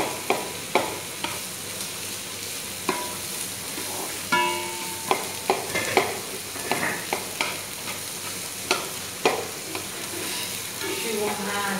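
Julienned carrots and onions sizzling in oil in a nonstick frying pan, with a slotted spatula scraping and knocking against the pan at irregular moments as they are stir-fried.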